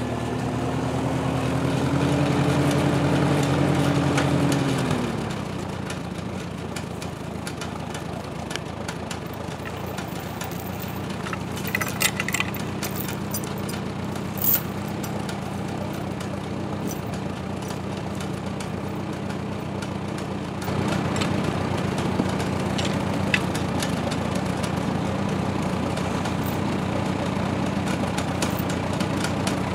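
Small farm tractor engine running at raised revs, then dropping back to a steady idle about five seconds in. A few sharp metal clinks, from logging chains being handled, come partway through.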